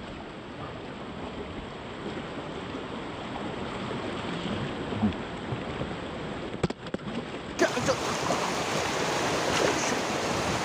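Shallow stream water splashing and churning, with sharper, louder splashes in the last few seconds.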